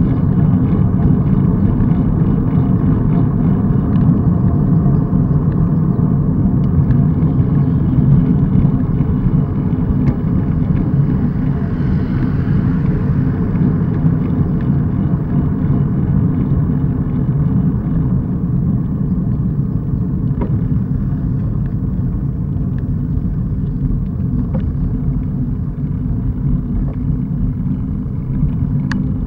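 Steady low rumble of wind buffeting the microphone of a handlebar-mounted camera, with tyre and road noise from a road bicycle riding at speed on tarmac.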